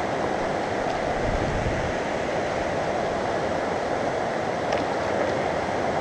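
Small mountain creek running steadily over rocks, an even rushing of water.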